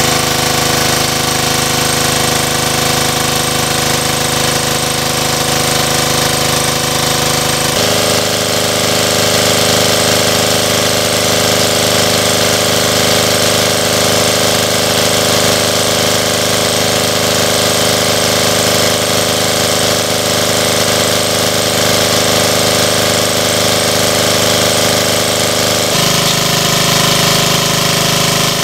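Small engine-driven water pump running steadily, drawing water out of a pond through its suction hose to drain it. Its engine note shifts abruptly twice, about eight seconds in and near the end.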